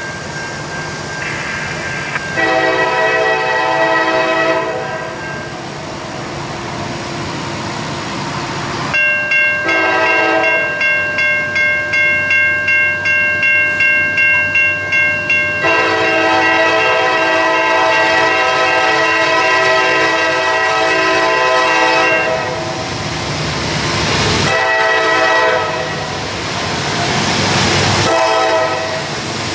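A diesel locomotive's air horn sounding the grade-crossing signal as the train approaches: two long blasts, a short one and a final long one. A crossing-signal bell starts ringing about nine seconds in, at about two strikes a second.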